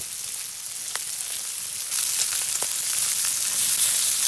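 Pork pieces sizzling in their own fat on a stone slab heated over a wood fire: a steady hiss with a few scattered pops, growing louder about halfway through.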